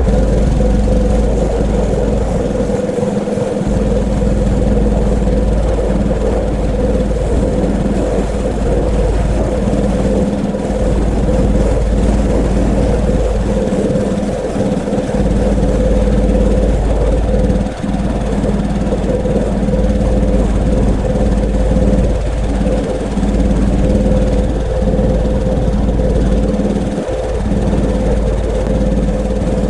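Pressure washer running steadily with a constant hum, with a few short dips in level.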